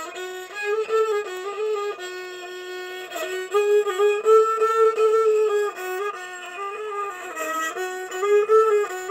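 A single-stringed-style folk bowed fiddle with a small round wooden resonator, played solo: a continuous melody in short phrases, with the bow sliding between notes.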